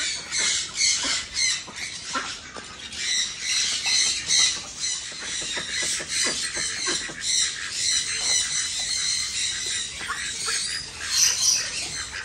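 A small flock of Cayuga ducks quacking repeatedly on a pond, with water splashing as one bathes.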